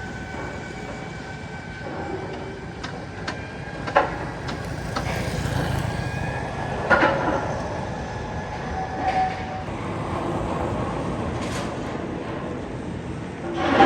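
Steady low mechanical rumble with a faint high squeal early on and a few sharp metallic clanks, the loudest about four and seven seconds in.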